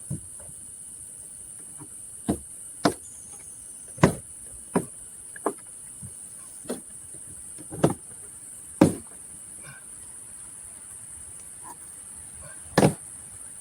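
Insects, likely crickets, drone steadily and high-pitched. About ten sharp, irregularly spaced knocks and clicks come over it from hand work on a car bumper, the loudest near the middle and near the end.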